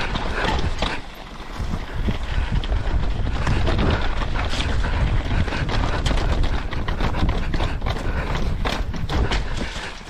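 Mountain bike clattering down a rocky trail: tyres knocking over stone slabs and loose gravel, with the frame and chain rattling in quick irregular knocks that come thickest in the second half. Wind buffets the microphone, a steady low rumble underneath.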